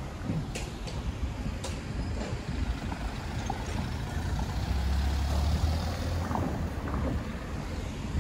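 Street traffic with a motor vehicle's low engine rumble that swells and fades in the middle. Two sharp clicks come in the first two seconds.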